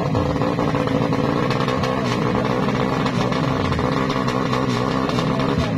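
Engine of a 200cc MX-class drag-racing motorcycle running at a steady, held pitch while the bike is staged at the start line before launch.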